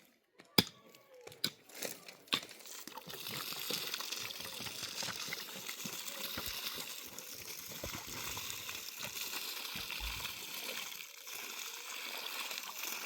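A few sharp knocks, then water running steadily from about three seconds in.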